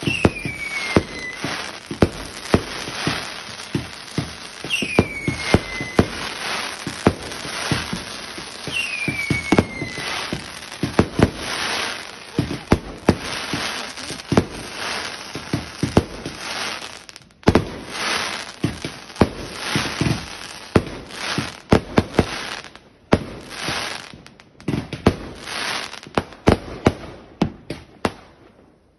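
Garden fireworks going off in a rapid multi-shot barrage: a dense run of bangs and crackles as shots launch and burst. There are three whistles, each falling in pitch, in the first ten seconds, and a brief lull a little past halfway.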